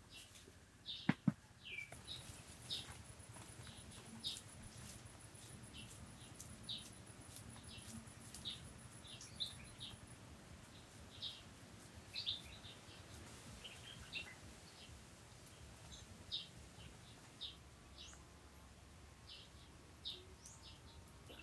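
Small birds chirping in short, scattered calls, with two sharp taps about a second in.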